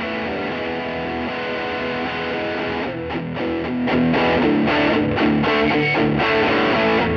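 A Gretsch Electromatic electric guitar part played back from a looper through the Bad Cat Siamese Drive dual overdrive pedal and a Peavey Classic 50 4x10 tube amp, with mild overdrive grit. Held, ringing chords give way to rhythmic strummed chords about three seconds in, and it gets louder about a second later.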